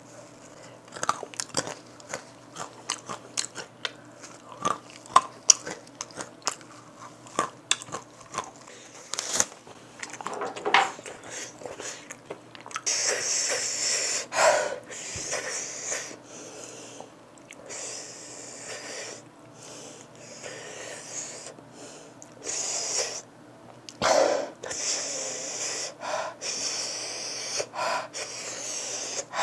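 Close-miked crunching and chewing of a chili-coated peanut coated with Carolina Reaper, Moruga Scorpion and capsaicin crystals, many sharp little crunches. From about halfway, repeated hissing breaths drawn in and blown out through the mouth, a reaction to the burning heat of the pepper coating.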